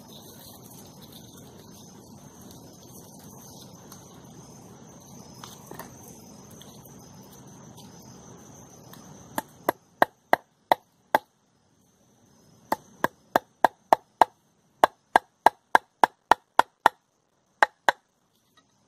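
A hammer driving a fence-wire nail into a wooden stump: about twenty sharp, quick strikes, roughly three a second, in three runs starting about nine seconds in. Before them there is a faint outdoor background with an insect's steady high chirring.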